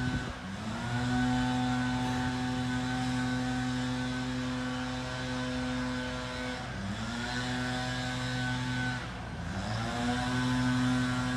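Small petrol engine of lawn-care equipment running at high speed. Its pitch sags and climbs back three times as the throttle is let off and opened again.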